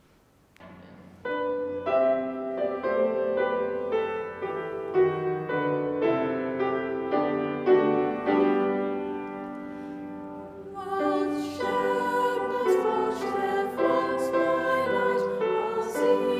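Piano playing a sustained introduction that begins about a second in. Partway through, choristers' voices join and sing with the piano.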